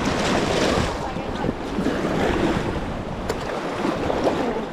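River water rushing and splashing around a raft being paddled forward, with wind buffeting the microphone.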